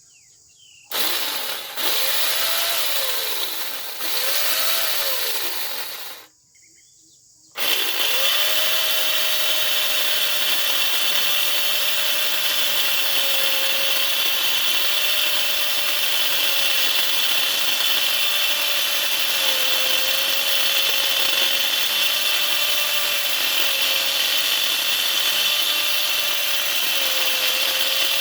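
Handheld power tool cutting into wood during carving. It makes two short runs with the motor pitch rising and falling, stops briefly about six seconds in, then runs steadily for about twenty seconds with a bright hiss.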